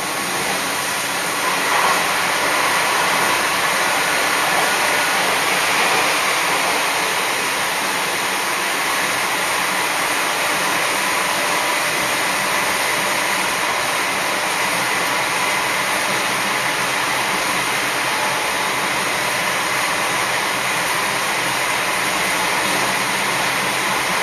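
Sanriku Railway diesel railcar running through a tunnel, heard from inside the car: a loud, steady roar of wheels, engine and rushing air closed in by the tunnel walls. It jumps up sharply as the train enters the tunnel.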